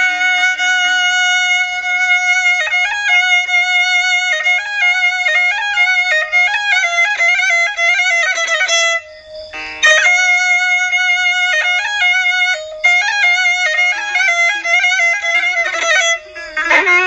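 Solo violin playing an ornamented melody in Qashqai (southern Iranian tribal) style, moving in small steps with quick turns around each note. It breaks off briefly about nine seconds in, then carries on.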